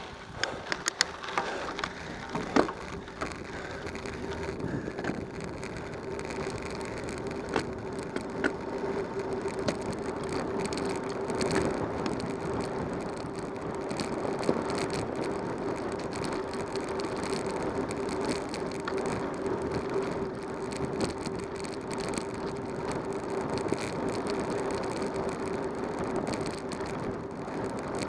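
Bicycle riding: tyres crackling over gravel for the first few seconds, then a steady rush of tyre and wind noise on pavement that grows louder as the bike gathers speed.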